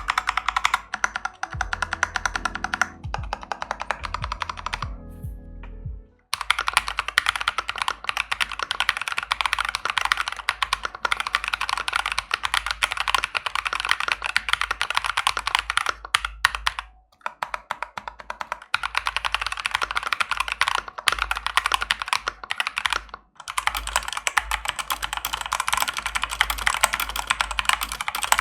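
Fast, continuous typing on a Redragon Fizz K617 mechanical keyboard fitted with lubricated Akko switches, PBT keycaps and sound-damping isolation. It gives a dense stream of key clacks that stops briefly twice. Background music plays over the first few seconds.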